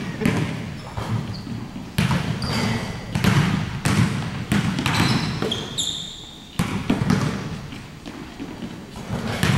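Basketballs bouncing on a hardwood gym floor during a shooting drill, irregular thuds with an echoing tail in the big gym, with short sneaker squeaks now and then.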